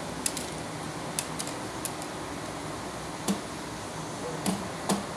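Scattered short clicks and taps, about seven, over a steady background hiss, from hands handling fabric and small tools at a sewing machine table while the machine is not stitching.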